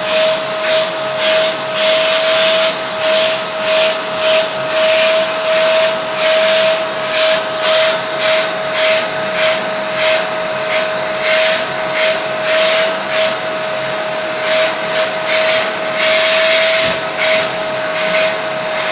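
Canister vacuum cleaner running with a steady motor whine while its hose nozzle is worked over a Vizsla's short coat. The airflow hiss swells and drops over and over, about once or twice a second, as the nozzle is pressed into the fur and lifted.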